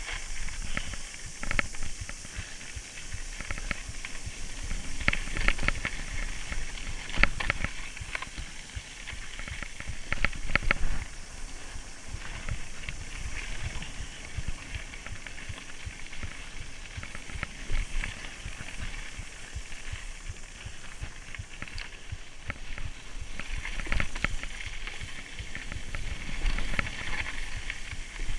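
Mountain bike rolling fast down a gravel track: tyres crunching on gravel, with rattles and knocks from the bike over bumps that bunch up about five to eleven seconds in and again near the end, over a steady hiss.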